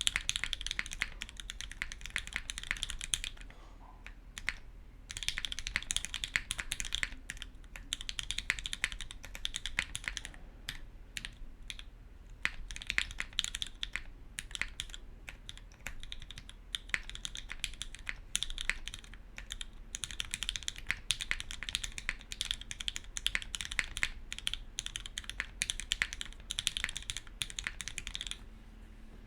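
Fast, continuous typing on a custom mechanical keyboard, a SingaKBD Unikorn R1 with lubed and filmed Gateron Ink v1 switches on an aluminum plate and GMK keycaps: a dense run of key clacks. It eases off briefly about three seconds in and stops just before the end.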